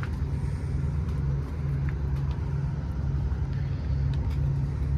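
Semi truck's diesel engine running steadily at idle, a constant low hum.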